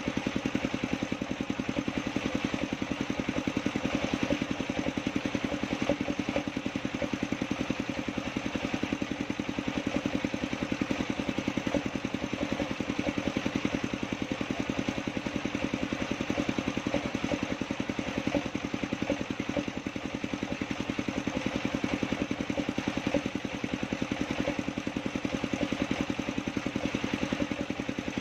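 Engine-driven circular sawmill running steadily at a constant speed, with a rapid, even engine beat and no change in load.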